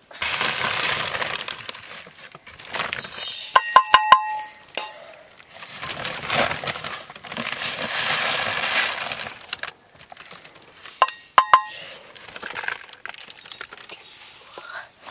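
Kitchenware clinking in two clusters, about four seconds and eleven seconds in, each strike leaving a short ringing tone. The clinks come between longer stretches of rough, scraping noise.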